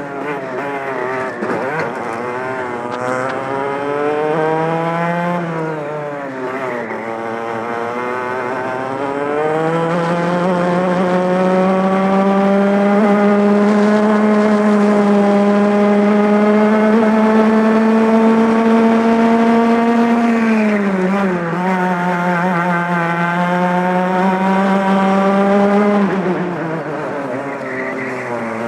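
Two-stroke racing kart engine at racing speed, heard from the driver's seat. The revs drop for corners and climb again, hold high and steady for several seconds at full throttle through the middle, then fall twice near the end under braking.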